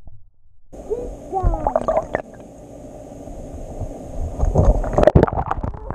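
Muffled underwater sound in a swimming pool: gurgling, bubbling water with short gliding bubble tones, and a cluster of knocks and swishes about five seconds in as a hand reaches in through the water.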